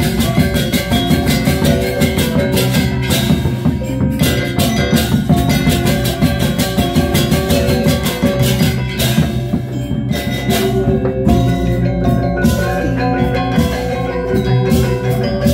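Balinese gamelan gong ensemble playing: rows of bronze kettle gongs and metallophones ringing out dense interlocking patterns over drums, with frequent sharp cymbal-like strikes.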